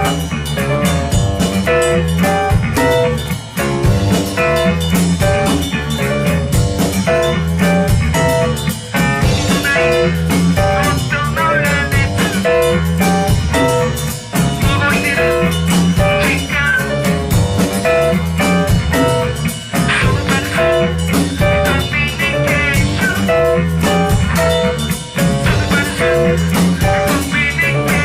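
A band playing a song with guitar and a drum kit to a steady beat.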